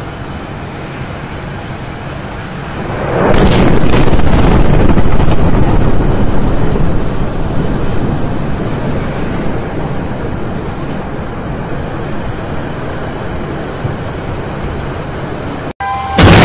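A distant industrial explosion: after a few seconds of steady wind-like noise, a deep rushing blast rises about three seconds in into loud rumbling that slowly dies away.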